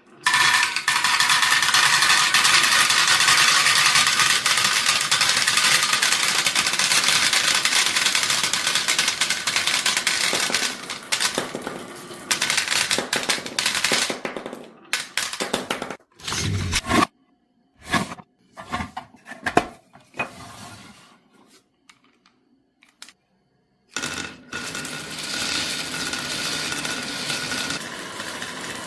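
Many marbles released at once, rattling and clicking down a HABA marble run in a dense clatter that thins to scattered clicks and knocks after about ten seconds. After a few seconds of silence, a steady mechanical hum with a held whine starts about 24 seconds in.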